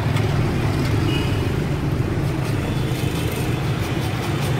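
Steady drone of busy street traffic, mostly motorbike engines passing on the road.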